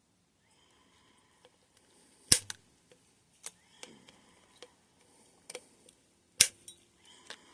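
Suspension fork parts and tools being handled during a teardown: two loud sharp knocks, about two and six seconds in, with lighter clicks and taps between.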